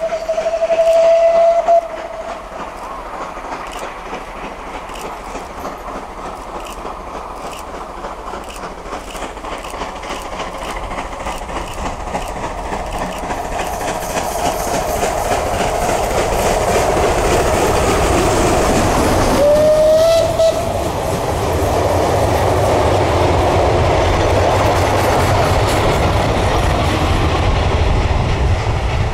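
Steam locomotive TKVJ nr 12 working a train up the line, its exhaust beats and running noise growing louder as it approaches and passes, then a heavy low rumble as it goes by. Its steam whistle sounds twice: a steady blast over the first two seconds, and a shorter one about twenty seconds in that rises in pitch as it starts.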